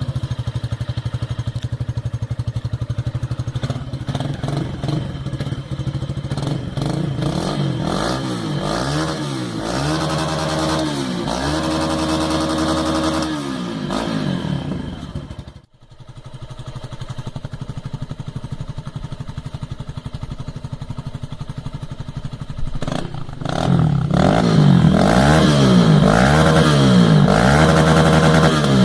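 Yamaha 150 cc single-cylinder motorcycle engine breathing through a Disarsz aftermarket sports exhaust: it idles, then is revved up and down several times. After a brief break about halfway through it idles again, and over the last few seconds it is revved repeatedly and runs louder.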